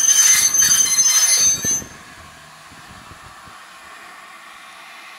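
Railway carriage wheels squealing with a loud, high, steady tone. The squeal cuts off about two seconds in, leaving only a quiet hiss.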